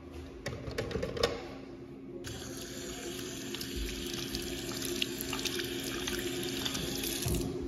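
Touchless faucet running water over a hand into a porcelain sink. The rush of water starts about two seconds in and cuts off near the end.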